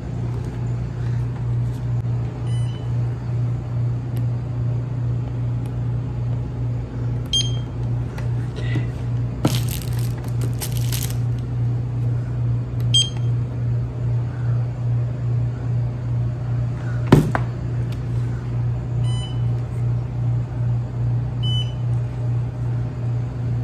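Handheld barcode scanner at a convenience-store checkout giving five short high beeps, spaced a few seconds apart, over a steady low electrical hum that pulses about twice a second. A wrapper crinkles about ten seconds in, and a single sharp knock comes about seventeen seconds in.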